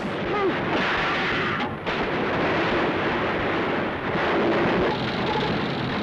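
Steady rushing roar of a German S-boat (Schnellboot) running fast at sea, engine noise and spray together, on an old 1940s film soundtrack. It breaks off briefly just before two seconds in.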